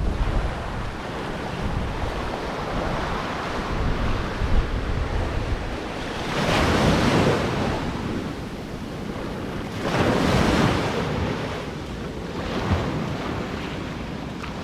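Ocean waves breaking and washing up on a beach, with surges of surf about halfway through and again a few seconds later, and wind buffeting the microphone.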